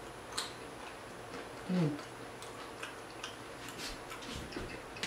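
Close-miked chewing of loaded nachos: scattered crisp crunches and wet mouth clicks, with a brief falling 'mm' hum a little under two seconds in.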